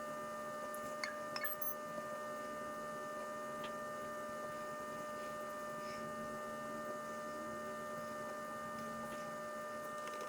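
Steady electrical hum made of several constant pitched tones over a faint hiss, with a few faint clicks about a second in.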